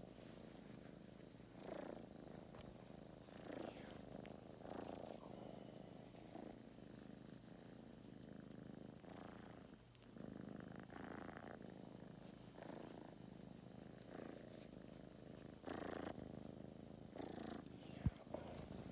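Kitten purring close up, a steady rumble that swells and fades with each breath, roughly every second and a half. A single sharp click near the end.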